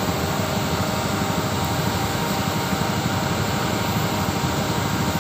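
An engine running steadily at an even pitch, a constant hum that neither rises nor falls.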